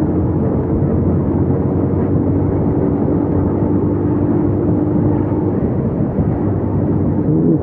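Yamaha YTX 125's single-cylinder four-stroke engine running at a steady cruising speed, its pitch holding level, under constant wind noise.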